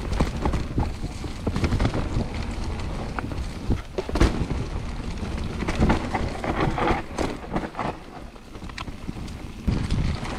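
Mountain bike riding down a muddy trail: low rumbling wind noise on the microphone and tyres on the dirt, with frequent sharp knocks and rattles of the bike over bumps.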